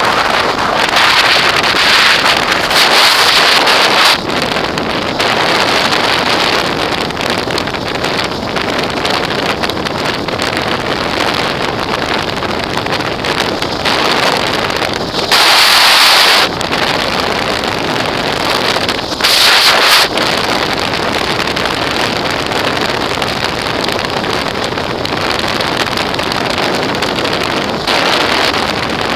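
Wind rushing over the microphone of a camera on a motorcycle riding at highway speed, a loud steady roar of air with road noise under it. Stronger gusts buffet the microphone for a few seconds near the start and twice briefly around the middle.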